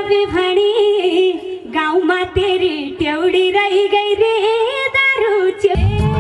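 A woman singing a slow, wavering melody into a microphone through a stage PA, with little accompaniment under her voice. Near the end the backing music comes back in with a low beat.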